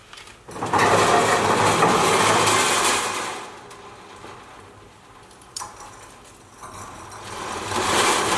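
A motor runs in two bursts: once for about two and a half seconds, then again, building up, near the end.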